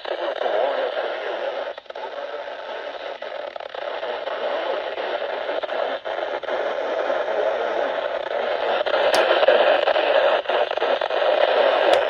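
Steady static hiss from a weather radio receiver picking up a NOAA Weather Radio broadcast, with a few faint clicks scattered through it.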